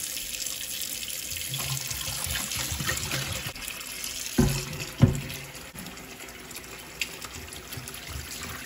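Kitchen faucet running steadily into a stainless steel sink. About four and five seconds in come two heavy clunks as a Wagner cast iron skillet is set down against the sink.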